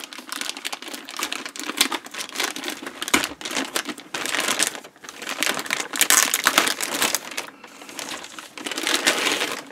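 Clear plastic bag crinkling and rustling as it is pulled off a benchtop digital multimeter, in bursts with short lulls.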